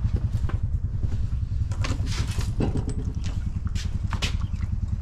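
Honda four-wheeler (ATV) engine idling with a low, rapid pulsing, and a few light clicks and knocks over it.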